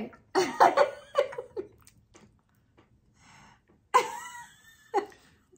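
Short bursts of laughter and breathy exhales, one cluster at the start and another about four seconds in.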